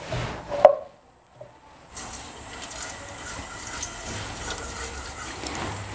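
A steady hiss with a faint low hum from a stove heating oil in a wok. A sharp knock comes just under a second in, followed by a brief dropout.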